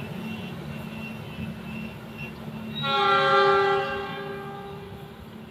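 Departing passenger train running with a steady low rumble; about three seconds in, its locomotive horn sounds one long multi-tone blast of about two seconds that fades away.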